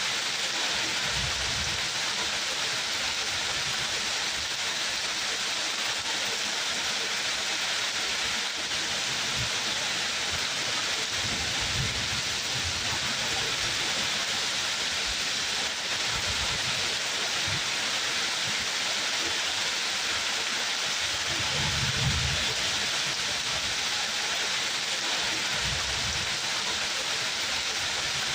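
Steady heavy rain, an even unbroken hiss, with a few brief low rumbles underneath, the strongest about two-thirds of the way through.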